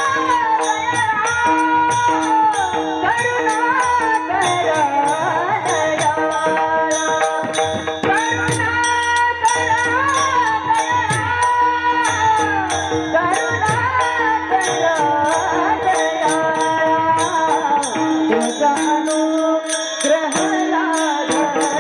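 Devotional kirtan music: a steady drone under a gliding melodic line, with small hand cymbals keeping a fast, even beat.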